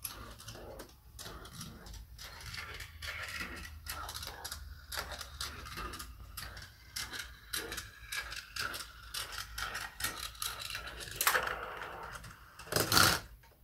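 Steel Gravitrax marbles rolling along metal rails and through plastic track pieces, a steady rolling rattle broken by many quick clicks. A louder clatter comes about 11 seconds in, and the loudest burst of clattering about a second before the end.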